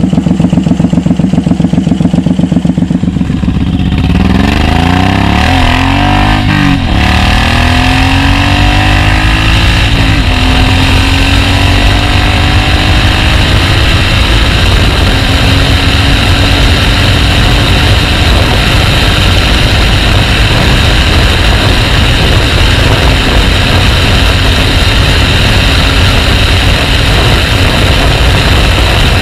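Suzuki Boulevard M109R's big V-twin idling with an uneven, pulsing beat. About four seconds in the bike is under way: the engine revs up and down through a gear change, then settles into a steady cruise with wind rushing past.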